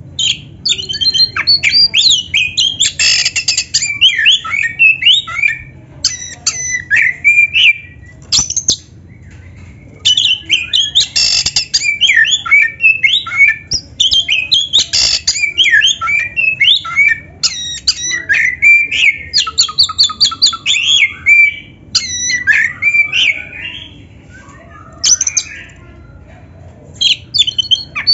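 Oriental magpie-robin (kacer) in full song: loud, rapid runs of varied whistles and harsh squawking notes, with brief pauses and a longer lull near the end. A faint low hum runs underneath.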